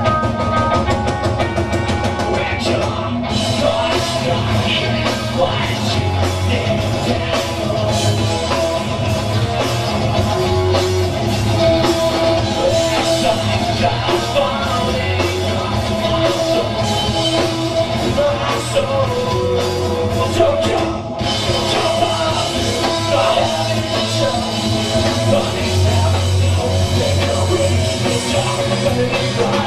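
Rock band playing live: loud, dense rock with a drum kit driving it, the cymbals dropping out briefly about two-thirds of the way through.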